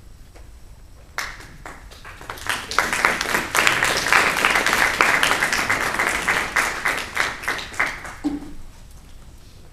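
Audience applauding after a poem is read. The clapping starts about a second in, swells to its fullest in the middle, and dies away near the end.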